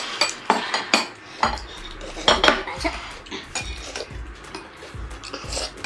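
Metal spoons and forks clinking and scraping against ceramic bowls and plates during eating, a quick irregular run of clinks. A low rumble sits underneath from about a second and a half in.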